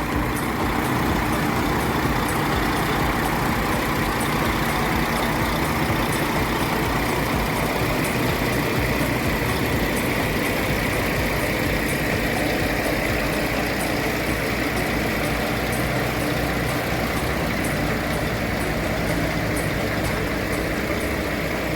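Heavy diesel engine of a low loader truck idling steadily.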